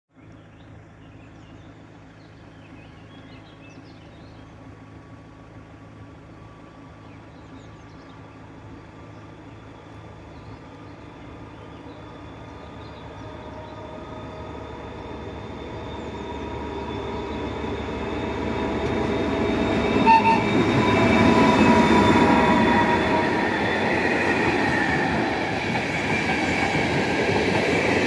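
ČD class 754 diesel-electric locomotive hauling passenger coaches, its engine drone growing steadily louder as it approaches and passes, with the clatter of the coaches' wheels on the rails near the end. A brief high tone sounds about twenty seconds in.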